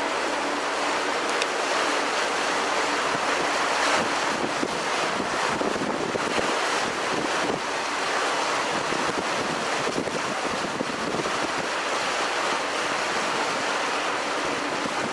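Wind buffeting the microphone on the open deck of a moving passenger ferry, with water rushing along the hull: a steady rushing noise.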